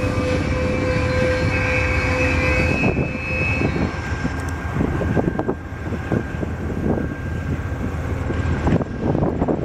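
Amtrak bilevel Superliner passenger cars rolling past on the track: a steady rumble with quick clicks and knocks of wheels over the rail joints. A steady high whine sounds over it and stops about four seconds in.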